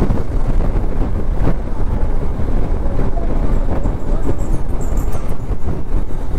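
Honda CB200X motorcycle riding at speed: a steady rumble of wind over the microphone, with engine and road noise underneath.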